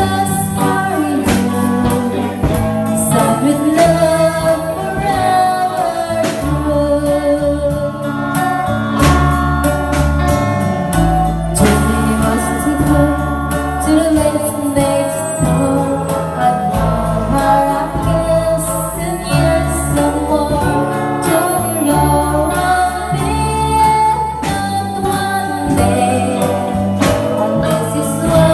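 A woman singing into a microphone with a live rock band of electric guitar, bass guitar and drums, all played loudly.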